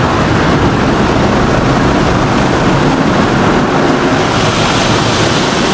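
Automatic soft-touch car wash: spinning cloth brushes and soapy water beating against the car, a loud, steady rushing heard from inside the cabin.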